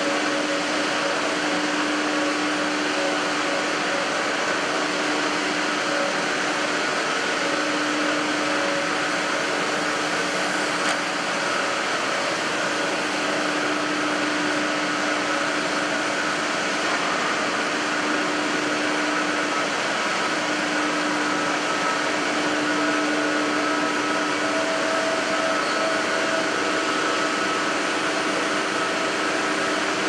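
Steady machine noise of a running aluminium cable-sheathing extrusion line: an even hiss with a few steady hums.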